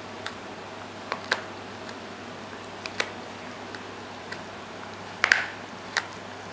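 A puppy gnawing on a knotted rope toy: a scatter of sharp clicks and clacks from its teeth working the rope, the loudest a quick double click about five seconds in.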